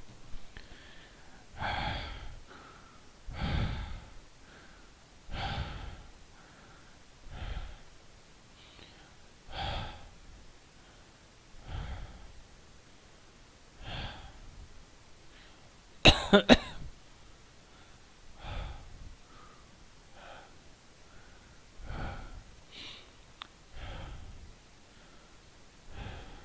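A person breathing heavily and audibly, about one breath every two seconds. The loudest sound is a sharp double cough about sixteen seconds in.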